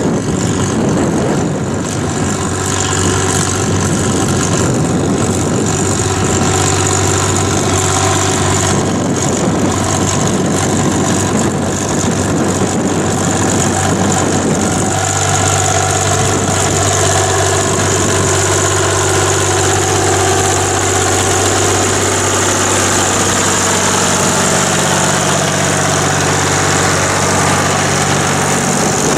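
Diesel tractor engine working steadily under load while ploughing. Wind buffets the microphone with a low rumble over roughly the first half.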